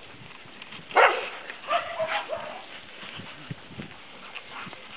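Dogs at play: one short, sharp bark about a second in, followed by a few quieter yips.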